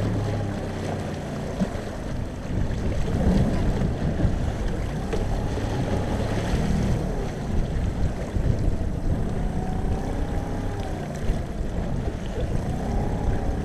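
Small open boat under way through choppy water: its engine running with a pitch that rises and falls as the hull rides the waves, water rushing and slapping along the hull, and wind buffeting the microphone.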